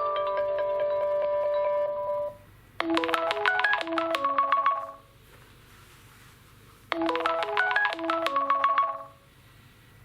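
Nokia 2.2 stock Android ringtones. One ends with a held chord a little after two seconds in. Then a short melodic ringtone phrase of quick notes plays twice, with a pause of about two seconds between.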